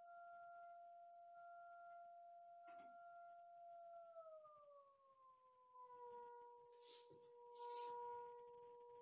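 Faint, steady pure tone from a small speaker, driven by a function generator through two magnetically coupled coils. The pitch glides down about four seconds in as the generator's frequency is turned lower, then holds steady at the new note.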